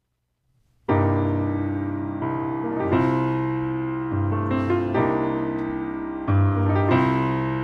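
Grand piano opening a jazz tune with sustained, full chords, starting about a second in, a new chord every second or so.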